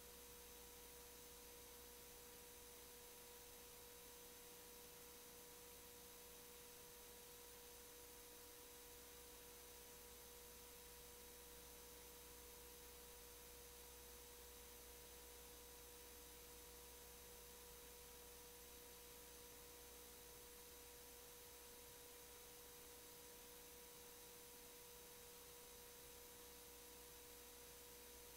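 Near silence: a faint steady hiss with a thin, unchanging electronic tone and no other sound.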